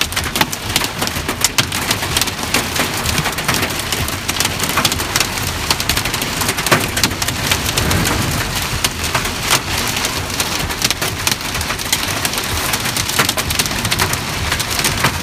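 Heavy rain mixed with hail, a dense steady hiss of rain broken by many sharp ticks and clicks of hailstones striking a surface.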